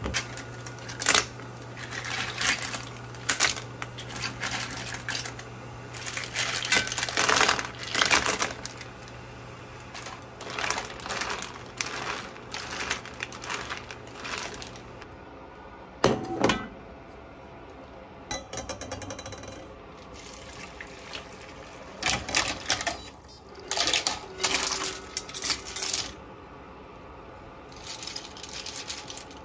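Dongjuk surf clams clinking and clattering against each other and against the metal pan and mesh strainer as they are stirred and scooped out of boiling water, in repeated bursts of sharp clicks. A steady low hum stops about halfway through.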